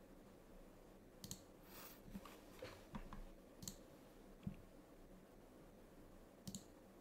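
Faint computer-mouse clicks, about half a dozen scattered irregularly, against near silence.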